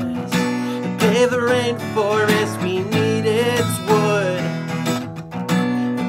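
Acoustic guitar strummed in a steady rhythm, with a man singing along over it.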